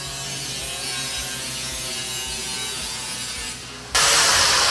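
Angle grinder running against aluminium chequer floor plate, its motor whine steady. It drops off for a moment, then about four seconds in turns to a much louder, harsh grinding.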